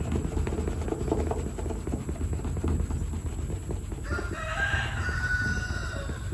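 Microfiber towel rubbing back and forth on car paint, scrubbing off tree sap softened by cleaner. About four seconds in, a rooster crows for about two seconds.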